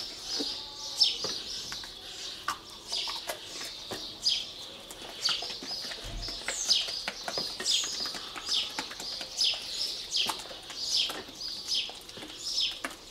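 A small bird chirping over and over, short high chirps that slide downward, about one or two a second. Faint clicks and scraping from paint being stirred in a small cup lie under them.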